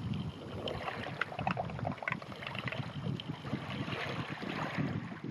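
Small waves lapping and splashing against rocks at the water's edge, many small irregular splashes, with some wind buffeting the microphone.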